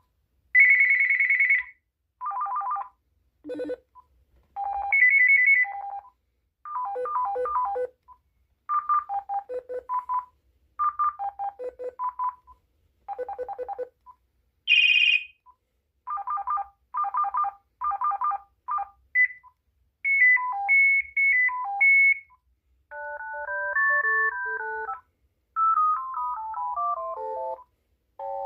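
Uniden DCT648-3 cordless phone handset playing its ringtones one after another: a series of short electronic trilling and beeping patterns, then simple melodic tunes, each a second or two long with brief gaps and single key beeps between them.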